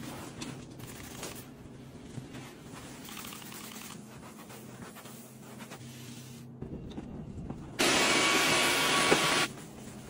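Paper towel rubbing over a stainless-steel fridge door, then a Dyson Gen5outsize cordless vacuum switched on for under two seconds: the loudest sound, a steady whirring noise with a thin whine that starts and cuts off abruptly.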